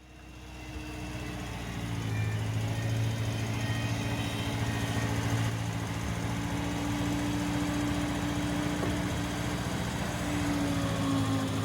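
A small engine running steadily at idle, fading in over the first couple of seconds.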